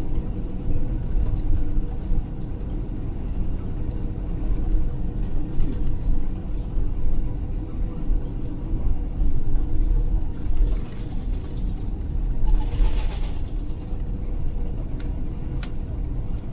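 Steady low cabin rumble of an Airbus A330 taxiing on the ground. A brief hiss comes about three-quarters of the way through, and a single sharp click near the end.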